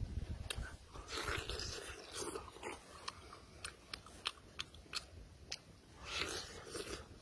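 Close-miked eating sounds: a man pulling apart and biting into a whole cooked fish with his fingers, with many sharp wet clicks of the mouth and chewing. A longer crunching bite comes near the end.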